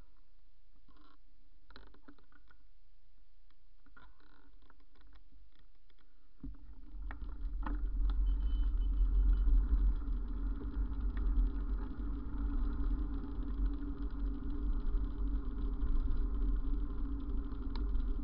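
Bicycle ride heard through the camera's microphone: faint ticks at first, then from about six seconds in a louder, uneven low rumble of wind and road noise.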